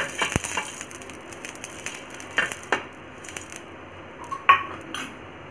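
Oil sizzling on a hot tawa (flat griddle) as it is spread with a silicone brush, a steady hiss, with a few short clinks and taps, the loudest about four and a half seconds in.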